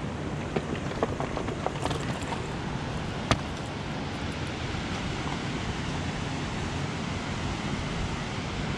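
Steady wind and water noise along the shore. In the first few seconds there are scattered clicks of river rocks knocking underfoot, with one sharper click about three seconds in.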